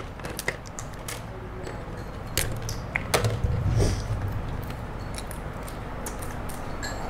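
Small irregular clicks, taps and scrapes of a plastic utensil working against the hard shell of a steamed crab, picking out the meat.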